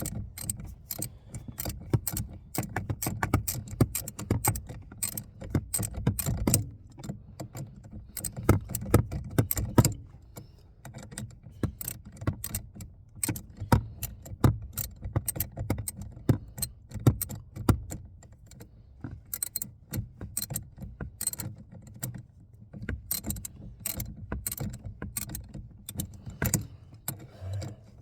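Metal hand tool clicking and clinking as a bolt is screwed in and tightened: a long run of irregular sharp metallic clicks over a low rumble of handling.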